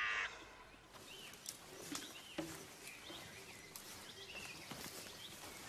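Faint countryside ambience with small birds chirping now and then, short high calls scattered through a quiet background hiss.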